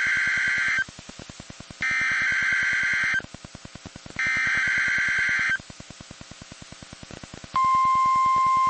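NOAA Weather Radio EAS/SAME alert header: three bursts of raspy two-tone digital data, each about a second long, with a faint pulsing buzz in the gaps. About seven and a half seconds in, the steady 1050 Hz weather-radio alert tone starts, the signal that a warning broadcast (here a snow squall warning) follows.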